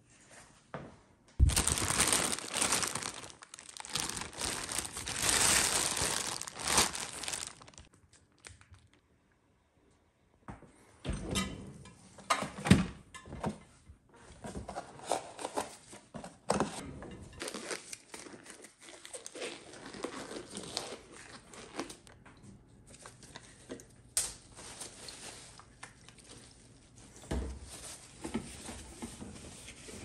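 Crinkling and crumpling of packaging for about six seconds; after a short pause, a long run of rustles, taps and light knocks from supplies being handled, among them disposable gloves pulled from their cardboard box.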